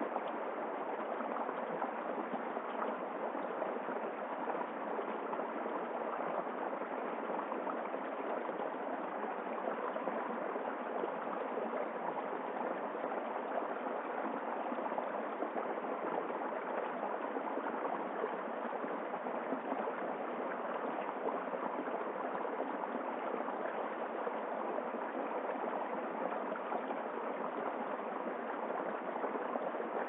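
Small rocky woodland stream running over stones and a low cascade into a shallow pool: a steady, even babble of water that does not change.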